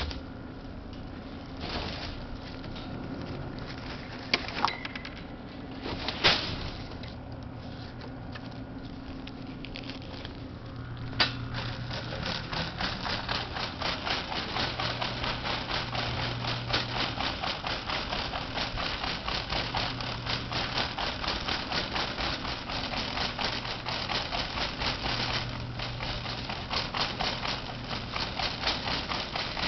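Shopping cart rolling across a hard tiled store floor, its wheels and wire basket setting up a fast, steady rattle. Before that, a few separate knocks and bumps.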